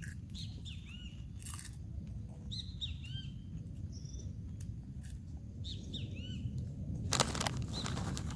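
Small birds chirping: many short, arched chirps, repeated in clusters, over a steady low rumble. A burst of noise near the end.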